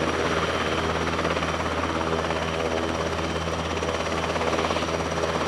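NHIndustries NH90 twin-engine military helicopter running on the ground, its turboshaft engines and turning rotor making a steady drone with a thin, high, constant whine.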